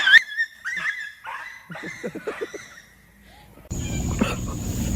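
A dog's high whine, then a run of short yips. Near the end the sound cuts abruptly to a steady noisy background.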